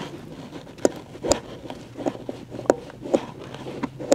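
Fingers feeling over and pressing the reset button of a Ford fuel-pump inertia switch behind the carpet: a string of small, irregular clicks and knocks on plastic over a faint steady hum.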